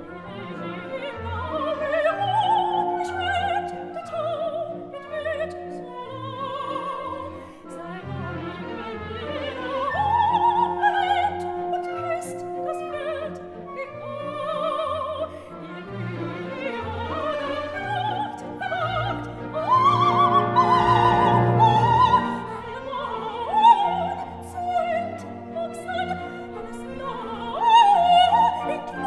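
Background music: a classical operatic voice sings long notes with wide vibrato over an orchestra.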